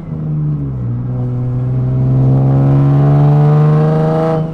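Turbocharged Nissan 370Z's 3.7-litre V6 accelerating on its new downpipe exhaust, heard from inside the cabin. Its note climbs steadily in pitch, with a sharp drop right at the start and again near the end, as with upshifts. The exhaust sound sits at the back of the car rather than droning in the cabin.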